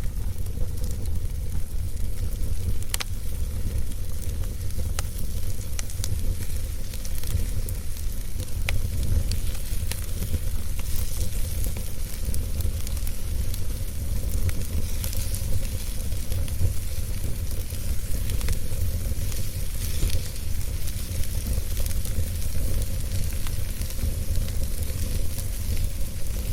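Wood fire burning in a fireplace: a steady low rumble and hiss with scattered sharp crackles.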